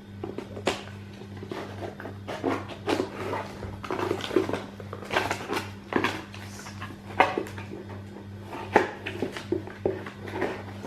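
Hands unwrapping and handling a CD single package: irregular rustles, crinkles and sharp clicks, over a steady low hum.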